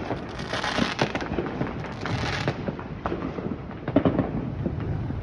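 Fireworks going off: a dense string of sharp crackling pops, with hissing stretches about half a second and two seconds in, and a louder bang near four seconds.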